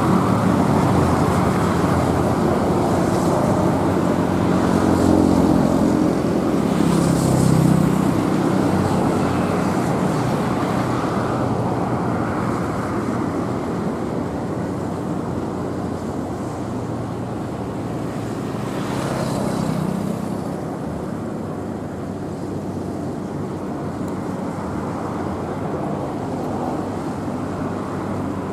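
Steady road traffic passing close by, with engine hum underneath and a vehicle swelling past about a quarter of the way in and again about two thirds of the way in.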